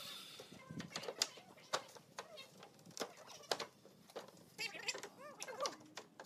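Wooden slats knocking and clacking against each other and the frame as they are laid in and shifted by hand, in an irregular series of sharp taps.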